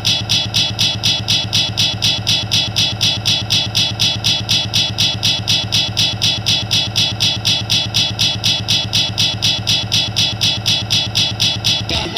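Christmas music CD skipping: a split-second fragment of the song repeats over and over, about four times a second, in an even stutter while the player is stuck on one spot of the disc.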